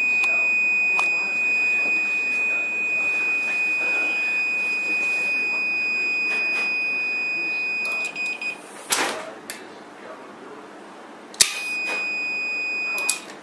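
A digital multimeter's continuity beeper sounds a steady high tone while the centrifugal switch contacts are closed. It cuts off about eight and a half seconds in, as the switch weights are swung out and the contacts open, with a knock of handling. After a sharp click it sounds again about eleven and a half seconds in, then stops just before the end.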